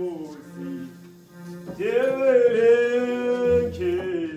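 Choir singing, with one long held note through the middle of the phrase, over a steady low sustained note underneath.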